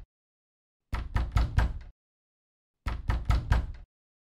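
Knocking: two quick runs of about five sharp knocks each, each run lasting about a second, two seconds apart, with dead silence between them.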